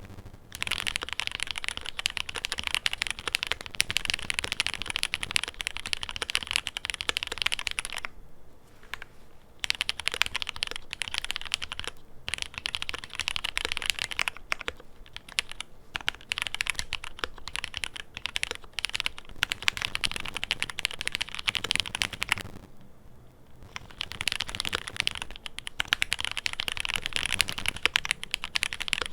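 Continuous fast typing on a QK100 mechanical keyboard with lubed Cherry MX Black linear switches (factory lube removed, Sprit 60s springs) soldered to the PCB and mounted on an FR4 plate. The keystrokes form a dense, steady run, broken by two short pauses, one about eight seconds in and one about twenty-two seconds in.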